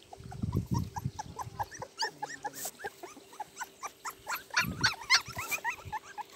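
A litter of young puppies squeaking and whimpering in many short, overlapping cries as they jostle to nurse, with a low rumble near the start.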